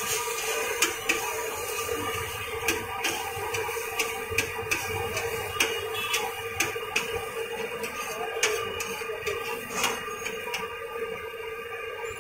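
Metal spatula scraping and tapping on a flat steel griddle, giving irregular sharp clicks several times a second, over the steady sizzle of egg omelettes frying and a constant low hum.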